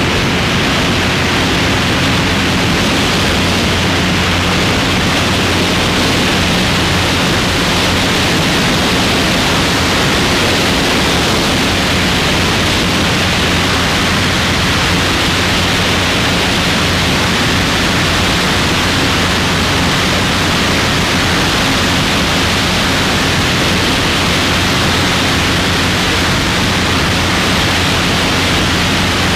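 Small plane in flight: a steady rush of wind with the even drone of its engine and propeller underneath, picked up by a camera mounted on the wing.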